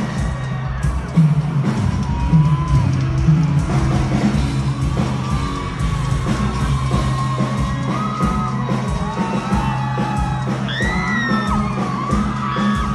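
Live music played loud through a PA, with a steady beat, a sung melody, and yells and whoops from the crowd.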